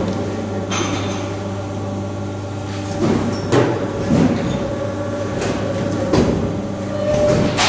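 Vertical hydraulic injection molding machine running: a steady hydraulic-pump hum with a higher steady tone over it, broken by several sharp clunks and clicks.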